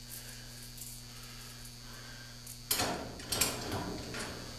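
A faint steady hum, then about halfway through two loud bursts of clattering and knocking, followed by a few lighter clicks, as hardware and the garden cart's plastic panels are handled during assembly.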